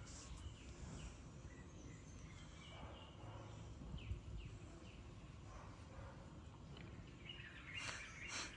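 Quiet background ambience with a few faint bird chirps, and a brief louder burst of noise near the end.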